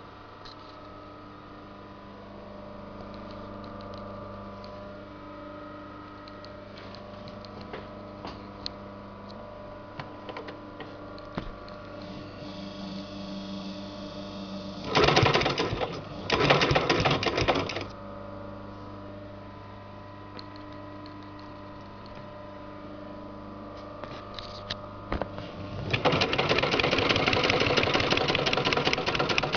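Sailmaster 266-1 heavy-duty walking-foot sewing machine stitching webbing through a thick multi-ply sailcloth corner. It makes two short runs of stitching about halfway through and a longer steady run near the end, with a steady hum in between.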